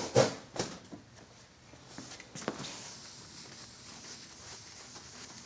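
A few sharp knocks and handling noises, then a soft, steady rubbing hiss of a cloth wiping down the freshly sanded table-saw top.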